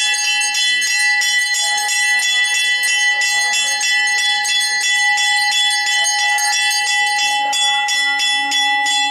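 Temple bells ringing fast and without a break for the lamp offering (aarti), about four strikes a second over a sustained metallic ring.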